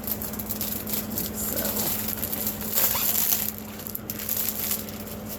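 Rustling and crinkling of a diamond painting kit's canvas and plastic packaging being handled and folded, loudest about three seconds in.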